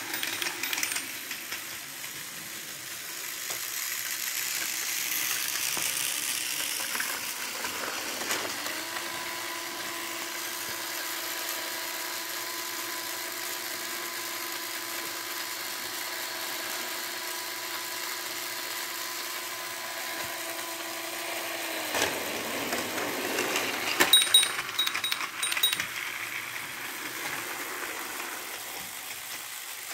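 Battery-operated Tomy Trackmaster Diesel 10 toy train's small electric motor whirring as it runs along plastic track pulling two trucks, with a steady whine through the middle. A cluster of clicks and clatter comes about three-quarters of the way through.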